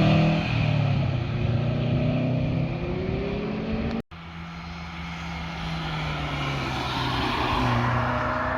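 Car engines and exhausts driving past: one car fading away after passing, then a sudden cut about four seconds in, after which another car approaches, loudest near the end, and begins to pass.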